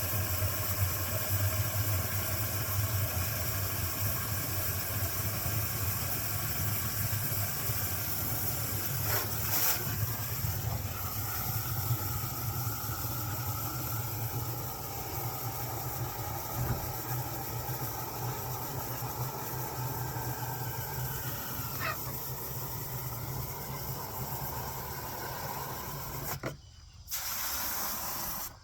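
A steady low motor hum with a hiss over it, like an engine running; it cuts out abruptly near the end.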